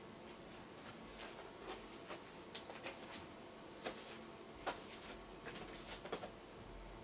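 Faint room hum with a dozen or so soft, irregular clicks and rustles, the loudest about four and five seconds in.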